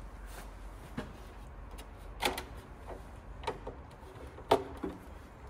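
A screwdriver and fingers working wires into the terminals of a circuit breaker in a plastic electrical enclosure: a handful of scattered clicks and taps, the loudest about four and a half seconds in.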